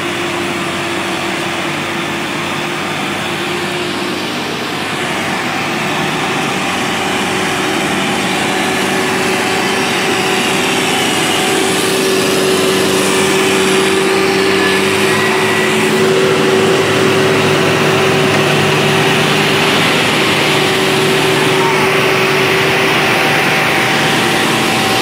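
Heavy diesel engines of a tractor and a logging truck running hard under load while pulling through mud: a loud, steady drone with small shifts in pitch around the middle.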